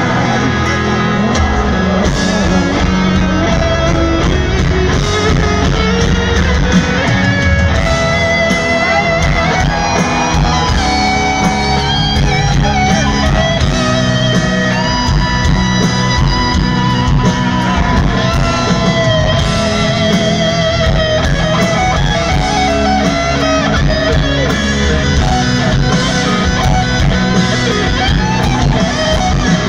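Live rock band playing, led by an electric guitar whose notes glide and bend over a steady bass and drum backing.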